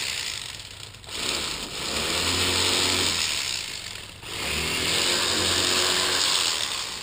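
Rapala electric fillet knife buzzing as it cuts shoulder meat from a bullhead catfish. It runs in three stretches, with short dips about a second in and about four seconds in.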